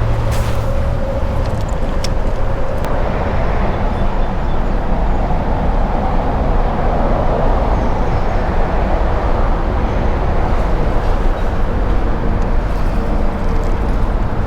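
Steady rumble and hiss of highway traffic passing overhead, continuous with no breaks.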